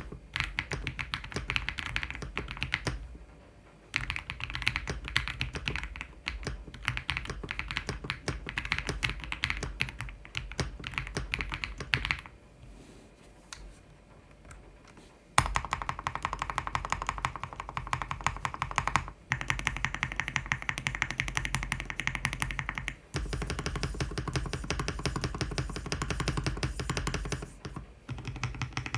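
Typing on a tape-modded Ajazz AK820 Max mechanical keyboard: rapid runs of key clacks. There is a brief pause about three seconds in and a longer pause of about three seconds near the middle.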